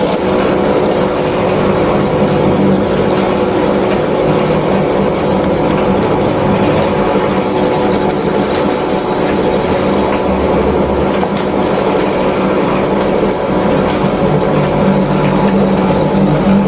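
Lathe running steadily while a pulley is turned on it: a continuous machine hum with a thin high whine over it.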